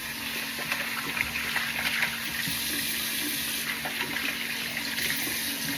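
Tap water running steadily into a sink, with a faint steady tone beneath it.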